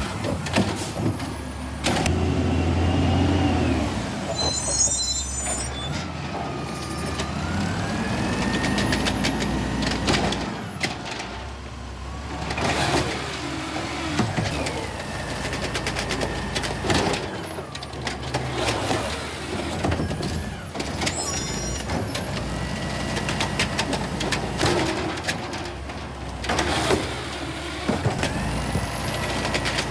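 Automated side-loading garbage truck working its grabber arm: the engine revs up and down to drive the hydraulics, with a hydraulic whine that rises and falls in pitch as the arm lifts and lowers the cart. Sharp bangs come from the cart knocking against the arm and hopper, and air hisses from the truck now and then.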